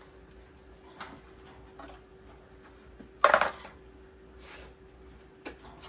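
Bird cage feeding cup being handled and set in place: a few light clicks, then one loud clatter about three seconds in.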